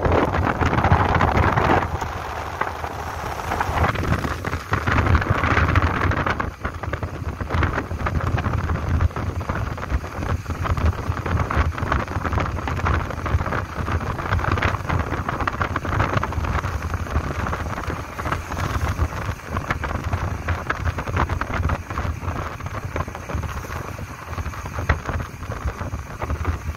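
Wind buffeting the microphone of a moving vehicle, a steady rushing with quick flutters over low engine and road noise.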